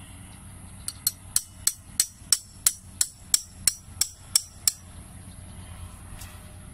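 Claw hammer driving a thin metal tent stake into the ground: about a dozen sharp metal-on-metal strikes, roughly three a second, starting about a second in and stopping after about four seconds.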